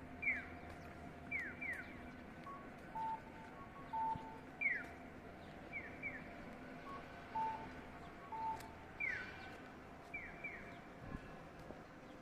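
Japanese pedestrian-crossing audible signal guiding walkers on the green light: electronic bird-like "piyo" chirps, each falling in pitch, sounding singly and in pairs, traded with short cuckoo-style beeps in a repeating cycle of about three and a half seconds.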